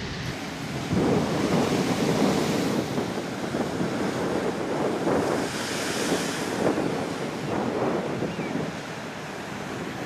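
Heavy ocean surf crashing onto a rock platform, a churning rush of white water. About halfway through, one wave bursts against the rocks into a tall spray with a loud hiss. Wind buffets the microphone.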